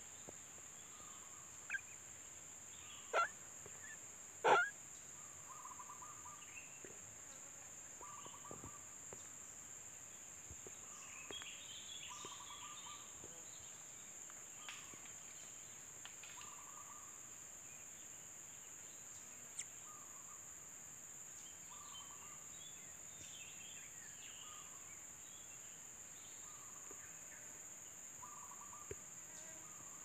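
Faint steady high insect drone, with short soft calls repeating every second or two and a few sharp clicks in the first five seconds, the loudest about four and a half seconds in.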